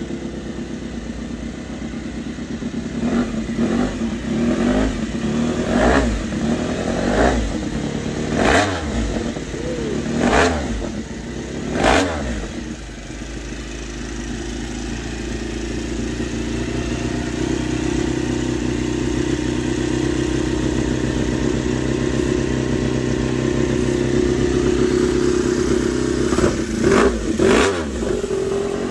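Honda RC213V-S V4 engine running with a string of about eight sharp throttle blips, then settling into a steady idle that slowly climbs in pitch and loudness, with two more quick blips near the end.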